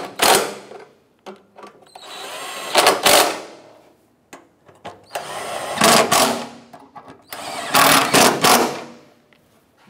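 Bauer 20-volt cordless impact wrench driving the cross-brace nuts tight through a socket and extension. It runs in four short bursts with brief pauses between, the last three each about a second long.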